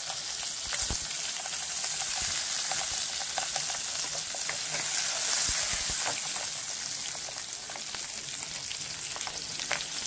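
Crawfish frying in butter in a metal pan, sizzling steadily with scattered crackles.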